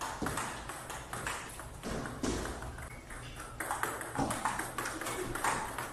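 Table tennis balls clicking off paddles and the table tops in quick, irregular succession, with rallies going on at more than one table at once.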